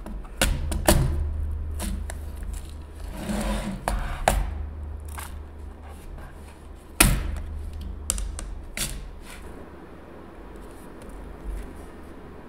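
Clear acrylic rhinestone storage cases handled on a table: a handful of sharp plastic clacks as a case is set down and its clear lid is lifted off, the loudest about seven seconds in, with a short rustle between them.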